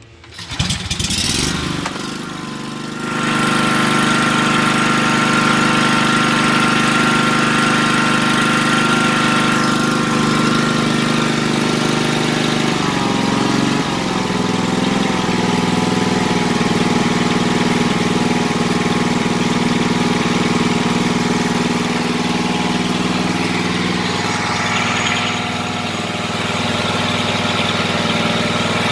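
Gravely Pro 1336 mower's 13 hp Kawasaki engine cranking and catching within about three seconds, then running steadily on its newly fitted carburettor. About halfway through the engine note wavers briefly and settles at a slightly different speed.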